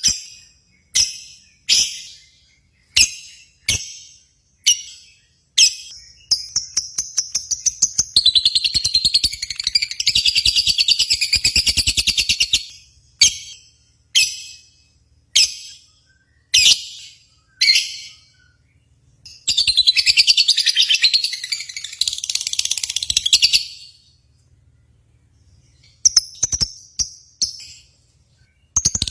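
Lovebirds calling. Sharp single high chirps come a little under a second apart, twice giving way to a long unbroken high-pitched chattering trill lasting several seconds, then quick chirps again near the end.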